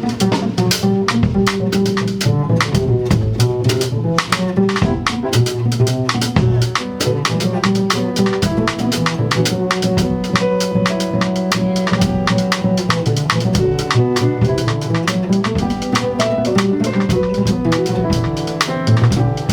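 Instrumental music: a drum kit keeping a steady beat under a moving bass line and other instruments.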